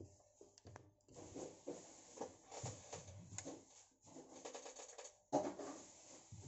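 Clicks, knocks and rubbing from a USAMS tablet stand being handled as its ball joint is tilted and its locking knob turned, with one sharper knock about five seconds in.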